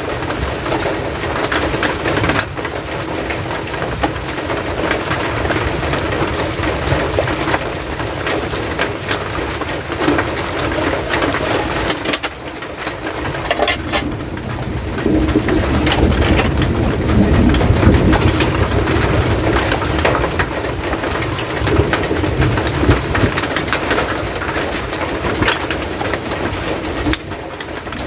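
Steady rain falling on the hut's roof and gutter, a dense hiss full of close drips and spatters, heavier for a few seconds a little past the middle.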